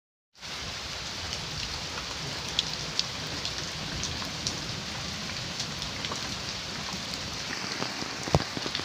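Heavy rain falling steadily, with close drops ticking sharply on nearby surfaces. It starts suddenly under a second in, and a single sharper knock comes near the end.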